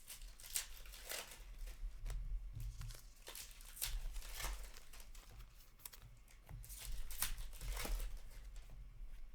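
Hockey card packs and cards being handled at close range: foil pack wrappers crinkling and tearing and cards sliding against one another, in an irregular string of short scrapes and clicks.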